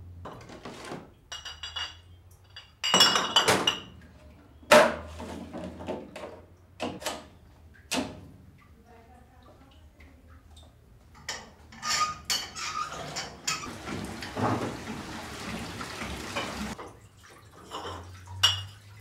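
Glass bottles clinking and clattering against each other, a string of sharp knocks, some with a short glassy ring. About two-thirds of the way through comes a few seconds of hissing.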